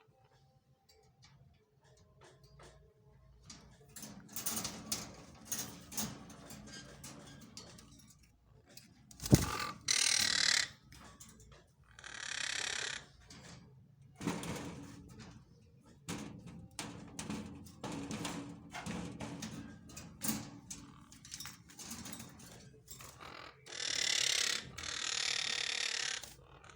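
A pair of African grey parrots making soft chatter and rustling, broken by several loud, harsh, hiss-like calls of about a second each, two near the middle and a longer pair near the end. There is also one sharp click about nine seconds in.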